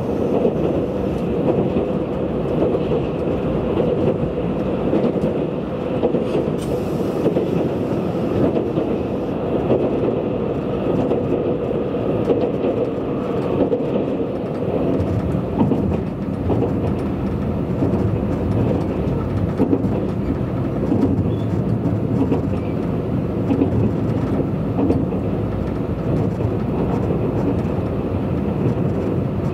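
Running noise of a Tobu 100 series Spacia limited-express electric train at speed, heard from inside the car: a steady rumble of wheels on rail, with a stronger hum in the first several seconds.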